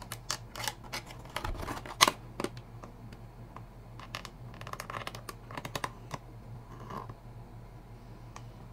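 Small hobby Lexan scissors snipping and scraping through a thin polycarbonate RC car body shell: an uneven run of short, sharp clicks, with one louder snip about two seconds in.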